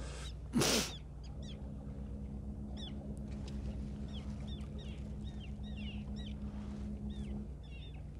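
Birds calling in many short, quick, falling chirps over the steady low hum of a boat's engine, with a steadier droning tone joining in from about a second and a half until near the end. A brief loud rush of noise comes about half a second in.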